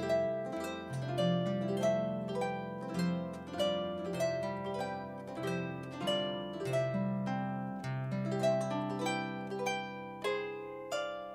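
Concert harp playing a slow, flowing piece: plucked notes about two a second, ringing over held bass notes.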